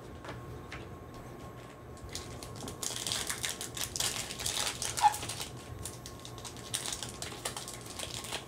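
Trading cards clicking as they are shuffled in the hands, then a foil Panini Chronicles card pack crinkling as it is torn open. The crinkling is loudest in the middle, with one sharp snap about five seconds in and more crinkling near the end.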